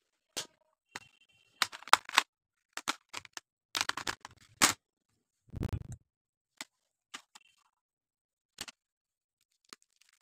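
Sharp clicks and taps of plastic stationery being handled, picked up and set down, in two quick clusters about 2 and 4 seconds in, then sparser single clicks. A low thud comes just under 6 seconds in.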